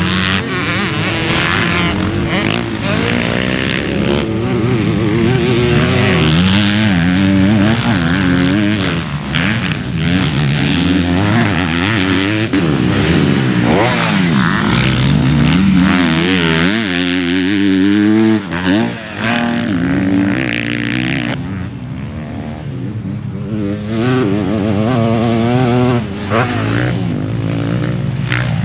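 Motocross dirt bike engines running hard on a track, their pitch climbing and falling again and again with throttle and gear changes, more than one bike audible at once.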